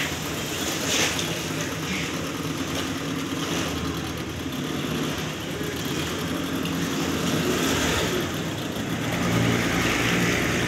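Speedboat outboard motors running at low speed while the boat manoeuvres, a steady low engine hum that grows somewhat louder near the end.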